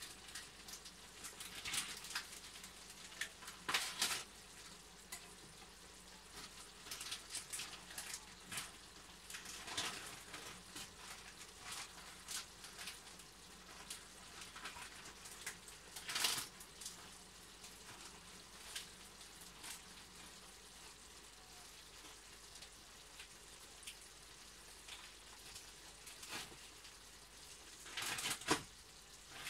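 Chicken pieces, onions and carrots sizzling in a dark sauce in a frying pan, a soft steady hiss broken by scattered crackles and spits, with a few louder bursts of popping, one near the end.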